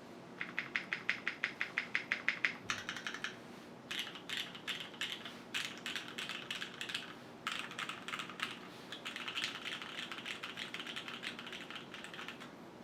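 Typing on a QwertyKeys Neo 65 mechanical keyboard with Cherry HyperGlide Black linear switches in an aluminium plate, gasket-mounted with no foam inside. Fast runs of keystrokes, several a second, broken by short pauses, stopping just before the end.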